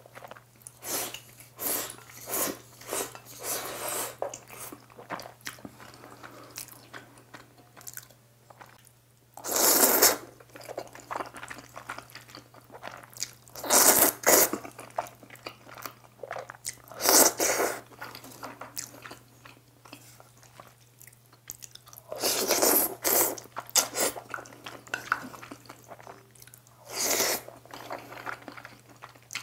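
Close-up eating of black-bean instant noodles: wet chewing and mouth sounds, broken by about five loud slurps of noodles sucked in from chopsticks, each lasting about a second.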